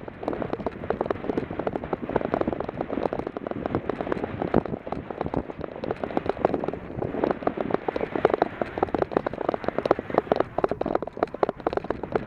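Bicycle rolling fast downhill on a loose dirt road: tyres crunching over dirt and gravel and the bike rattling over bumps in a dense, continuous clatter.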